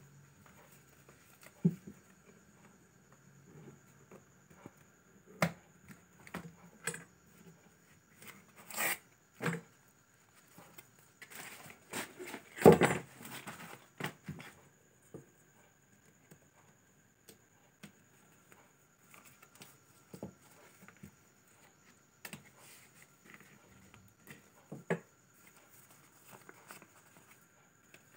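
Hands handling cardboard and paper packaging: scattered taps and short rustles as stiff boards are moved. About halfway through there is a longer stretch of paper rustling and tearing, the loudest part.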